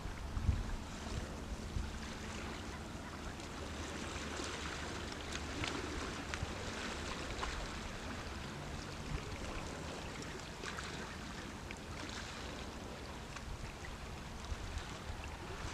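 Sea water washing against a rocky shore, a steady surf hiss, with low wind rumble on the microphone that is strongest about half a second in.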